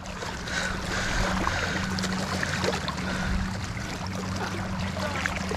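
A steady low mechanical hum from the boat, under a wash of wind and water noise, with a few faint ticks.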